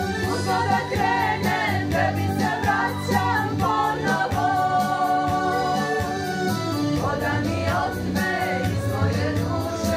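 Women's vocal ensemble singing together in several parts into microphones, over a sustained low accompaniment with a steady beat.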